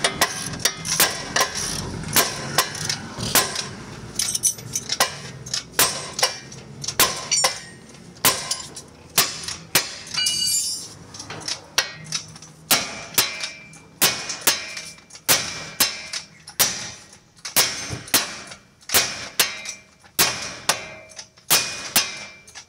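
A hammer striking metal again and again, about two blows a second, each hit ringing briefly, with a short break near the middle.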